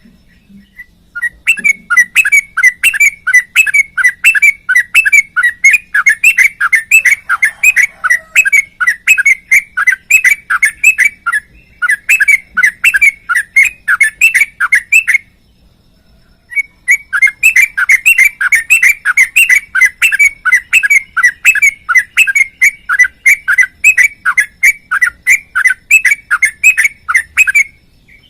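Yellow-vented bulbul (trucukan) singing a long, fast run of repeated chirping notes, about four a second. It breaks off for about a second and a half midway, then carries on.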